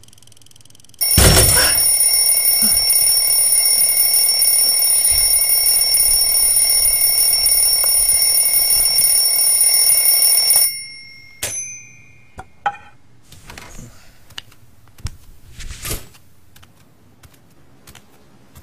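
Alarm clock ringing loudly and steadily for about ten seconds, then cut off suddenly as it is switched off. A few clicks, knocks and rustles follow.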